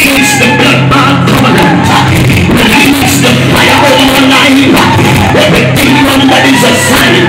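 Loud worship music with singing over a steady beat.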